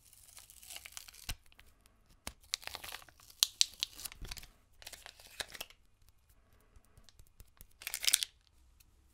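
Paper rustling, crinkling and tearing in irregular bursts as the paper backing of a temporary tattoo is peeled off the skin and handled. Near the end comes a short crinkle of foil candy wrappers.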